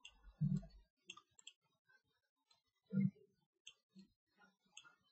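Computer mouse button clicks, about six sharp ones scattered through, with two short low thuds about half a second and three seconds in that are the loudest sounds.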